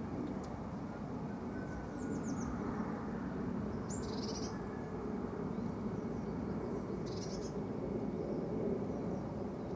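Birds chirping briefly three times, about two, four and seven seconds in, over a steady low rumble.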